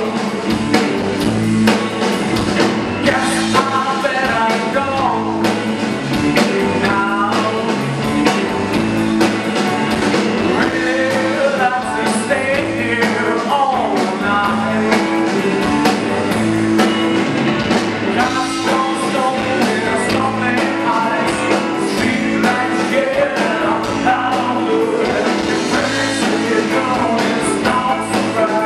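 A rock band playing live: a male singer's lead vocal over electric guitar and a drum kit.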